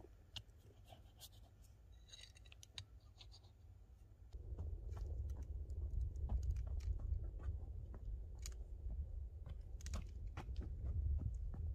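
Scattered crunches and clicks of stones and gravelly dirt being handled and stepped on. About four seconds in, a steady low rumble of wind on the microphone comes in under them.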